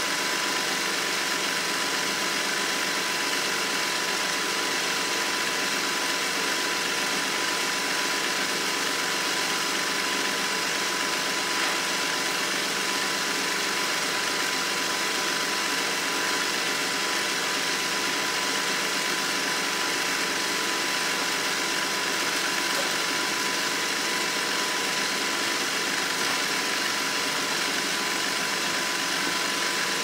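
iRobot Roomba S9+ robot vacuum running its motor steadily while sitting motionless, an even whir with a constant tone and no change in pitch or level: the robot stuck in what the owner calls a catatonic 'zombie' state.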